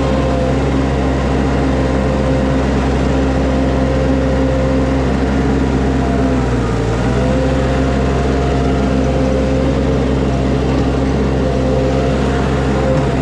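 Skid steer engine running steadily at working throttle; about six and a half seconds in its pitch sags briefly under load, then recovers.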